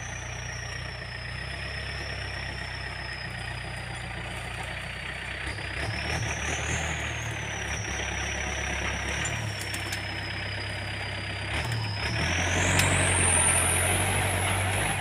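Yanmar EF514T tractor's diesel engine running under load as it pulls a disc plough through wet, muddy soil. About twelve seconds in the engine note grows louder and heavier, and a high thin whine rises with it.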